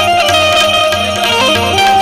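Instrumental Indian folk music: tabla with deep, pitch-bending bass strokes and small hand cymbals clashing in rhythm, under a melody line that steps up and down.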